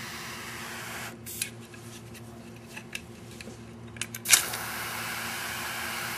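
Zippo BLU butane lighter: a few small metal clicks, then a sharp strike of the flint wheel about four seconds in, followed by the steady hiss of the butane flame burning.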